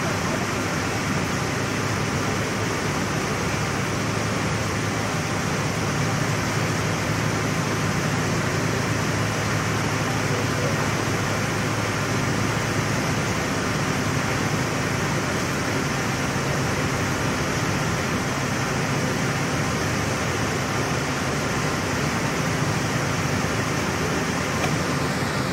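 TIG (argon arc) welding on mild steel pipe: the arc gives a steady hiss with a low hum underneath.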